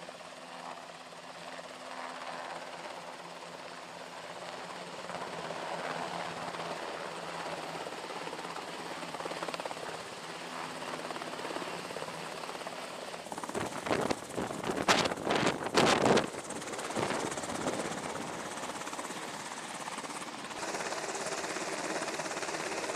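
Navy Seahawk helicopter's rotors and turbine engines running as it hovers in to land, growing louder as it closes in. Past the middle come a few seconds of loud, gusty buffeting, the rotor downwash hitting the microphone. Near the end the sound changes abruptly to the steadier running of the helicopter on deck.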